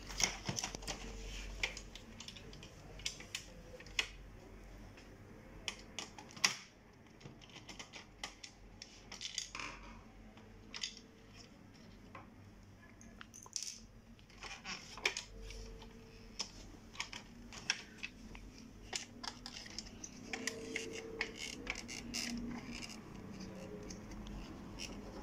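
Plastic parts of an Epson DS-1630 scanner's document feeder being handled by hand as its top cover is unclipped and worked loose: scattered light clicks, taps and knocks at an uneven pace, a few of them sharper.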